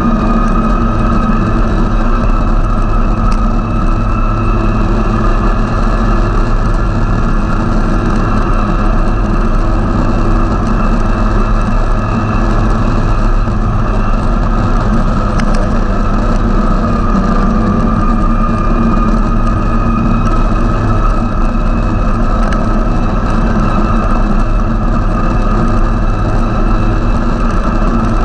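Snowmobile engine and track running at a steady cruising speed, a constant low rumble with a high whine that rises and falls slightly with the throttle.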